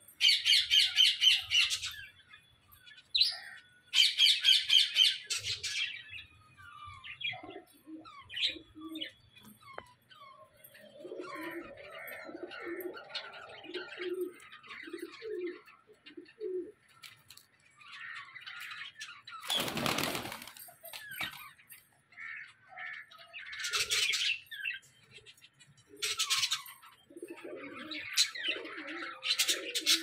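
Mixed aviary birds calling: budgerigars and zebra finches chattering. Two loud bursts of rapid high chirping open it, a run of low repeated notes follows midway, and a loud harsh call comes about two-thirds of the way through.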